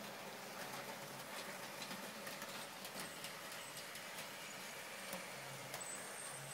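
OO gauge model passenger train running along the track: a faint steady running sound with many small, irregular clicks from the wheels on the rails.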